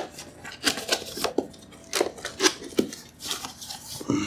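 Cardboard box being opened: the packing tape is cut and pulled free and the flaps are handled, giving a string of irregular scrapes and clicks.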